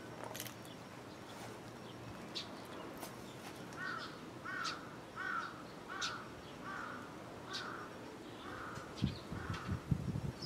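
A crow cawing, a steady run of about eight calls less than a second apart, with short high chirps scattered through. Low rumbling buffets come in near the end.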